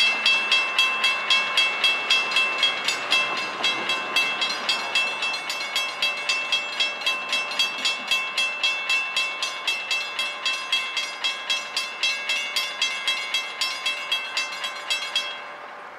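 Railroad grade-crossing warning bell ringing in rapid, even strokes, about three a second, and cutting off suddenly near the end: the crossing is warning of the approaching freight train.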